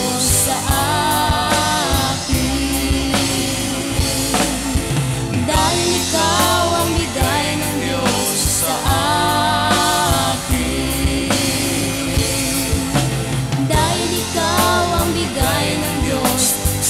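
Gospel band music: drum kit, bass, guitars and keyboards playing steadily, with a bending melodic lead line on top.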